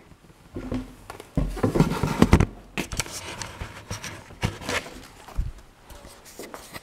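Handling noise: irregular knocks, thumps and rustles as a camera is set down and picked up again and a cardboard shipping box is handled, loudest about two seconds in.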